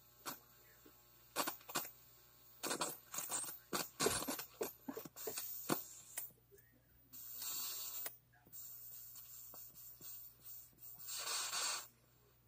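Amplifier crackling and hissing with electrical interference from a plasma ball, picked up by an audio cable held near the globe. Irregular clicks and crackles come first, then stretches of hiss that cut in and out, over a steady low hum.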